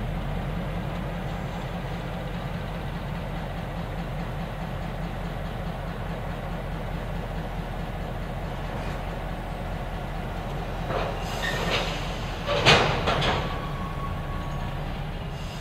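EMD SW1200 switcher's diesel running with a steady low rumble as it slowly moves loaded lumber flatcars along the track. About twelve seconds in comes a loud burst of metallic clanks, the loudest moment, followed by a short thin squeal.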